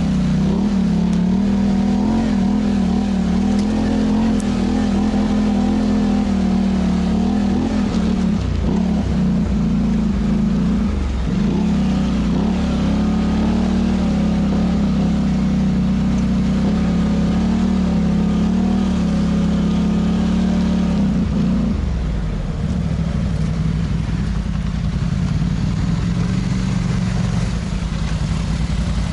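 Polaris Sportsman ATV's parallel-twin engine running at a steady trail speed, its note dipping briefly a few times about a third of the way in. About three-quarters through it drops to a lower, easier running note as the machine slows.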